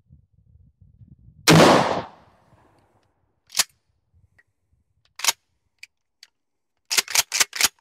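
One shot from a Mossberg pump-action shotgun firing a mini slug, about one and a half seconds in, with a short echo. It is followed by a series of separate clacks as the pump action is worked and the gun handled, ending in a quick run of five clacks.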